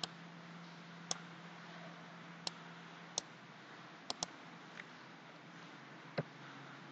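Computer mouse clicking, about eight separate sharp clicks with a couple of quick pairs, over a faint steady hiss. A low hum fades out about three seconds in.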